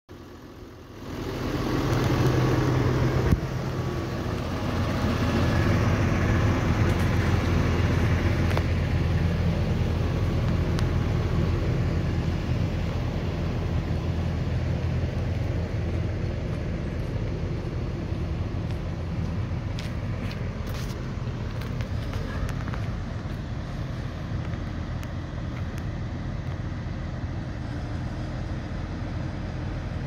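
Tractor diesel engine running steadily, a low even hum that comes up about a second in, with one sharp click about three seconds in.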